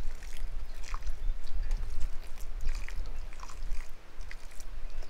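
Water poured from a stainless steel pitcher onto potting soil in a planter, with scattered small crackles as it soaks in, over a low rumble.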